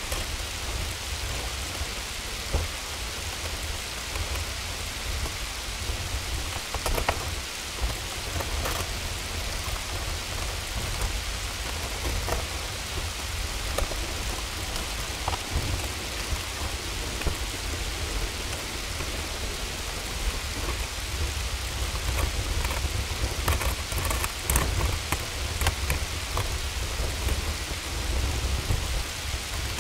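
Hailstorm: a dense, steady hiss of rain and hail pelting down, with scattered sharper hits and a continuous low rumble underneath.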